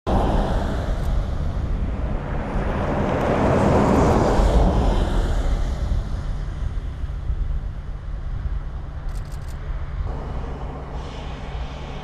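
A vehicle passing by, its noise swelling to a peak about four seconds in and then fading, over a steady low rumble.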